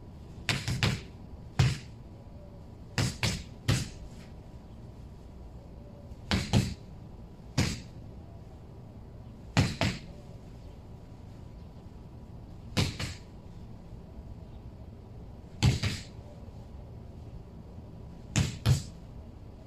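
Gloved punches landing on a hanging rubber tyre used as a punching bag: dull thuds, some single, some in quick two- or three-punch combinations, every one to three seconds.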